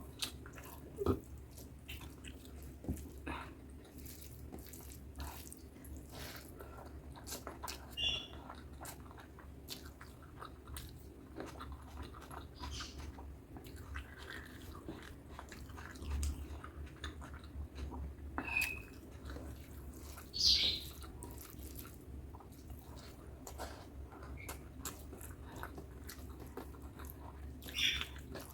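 Close-miked eating: wet chewing and lip smacks on butter chicken and rice, with frequent irregular clicks and a few louder, sharper mouth sounds over a steady low hum.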